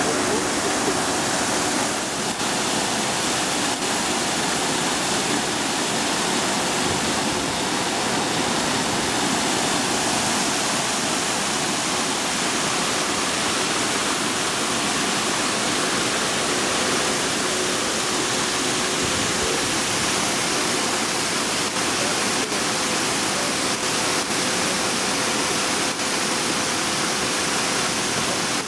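Raw wastewater gushing out of large pipe outlets into an open concrete channel, a steady rushing of churning water.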